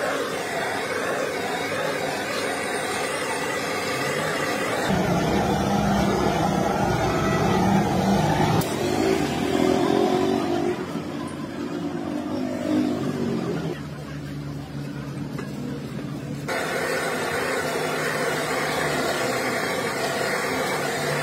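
Motor vehicle engines running close by, their pitch and loudness changing abruptly several times.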